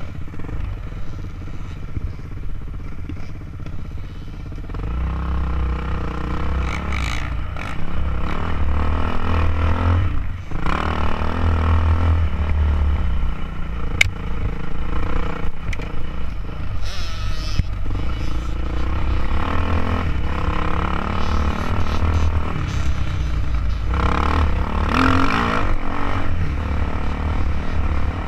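Dirt bike engine heard from a camera mounted on the bike, running hard and rising and falling in pitch as the throttle is opened and eased off over rough ground, with rattling from the bumps.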